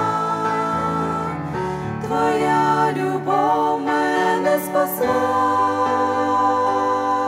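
A group of voices singing a slow hymn together, accompanied by a grand piano.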